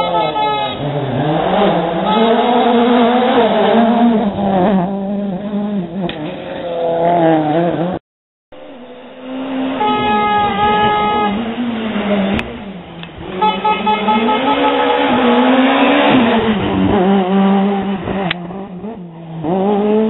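Rally cars at full throttle passing on a special stage, engines revving hard and dropping with each gear change. The sound cuts off about eight seconds in and picks up on another car passing the same way. A horn sounds briefly near the start and again about ten seconds in.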